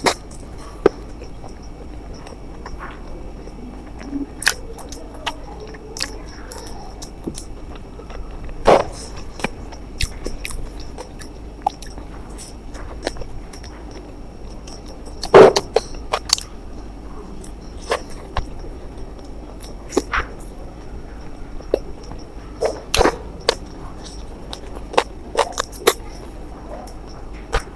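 Close-up eating sounds: chewing and mouth noises with many scattered sharp clicks, and a few louder bites about 9, 15 and 23 seconds in. A faint steady high-pitched whine sits underneath.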